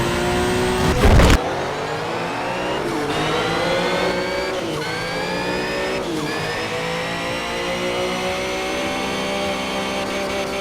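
Sports car engine sound effect accelerating hard through the gears: the pitch climbs, drops back at three upshifts, then keeps rising steadily. A loud short burst about a second in.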